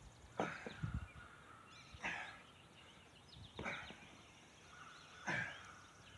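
A man's forceful exhales and grunts of effort, four of them at an even pace about every second and a half, as he does one-armed push-ups and rows with an 8-pound sledgehammer.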